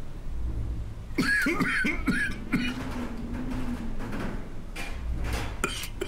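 A voice performer coughs and wheezes as a worn-out heating vent struggling to keep up. About a second in comes a run of hacking coughs, then a long drawn-out wheeze, with a few short sputters near the end.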